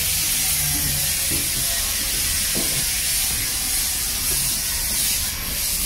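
A steady hiss over a low, even machine hum.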